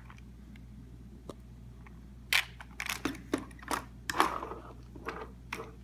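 Handling noise from a 3D-printed plastic prosthetic hand pressed and flexed against a wooden tabletop: a few faint ticks, then irregular clicks and knocks from about two seconds in, busiest a little past the middle.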